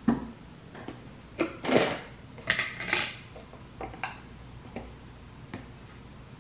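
Kitchen utensils and containers being handled: a run of light knocks, clatters and scrapes, loudest in a cluster about one and a half to three seconds in, then a few softer taps.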